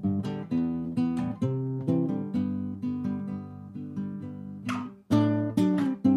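Acoustic guitar music, notes plucked and strummed one after another, with a short break about five seconds in.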